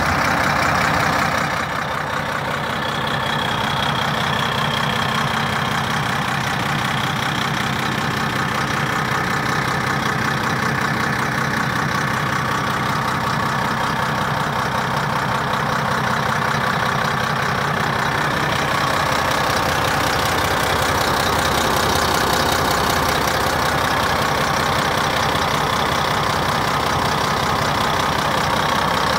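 Renault Iliade coach's rear-mounted diesel engine idling steadily, heard close up through the open engine hatch.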